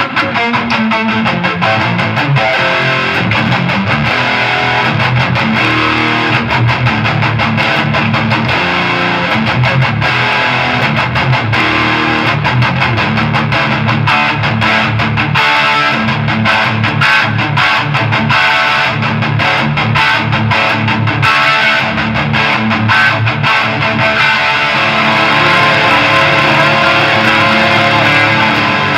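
Electric guitar played through a Snake Oil Fine Instruments Marvelous Engine gain pedal, continuous riffing with a distorted, overdriven tone.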